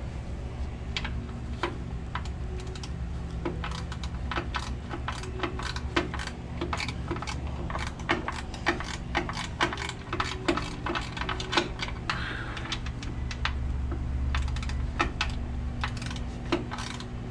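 Wrench working the nuts on the clutch-housing studs: many sharp metal clicks, scattered and in quick runs, over a steady low hum.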